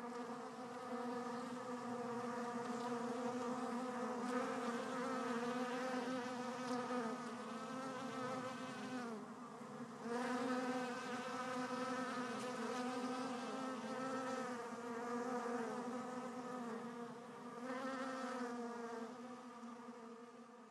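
A bee buzzing in one continuous drone that wavers slightly in pitch, with short dips about nine seconds in and again near the end before it fades out.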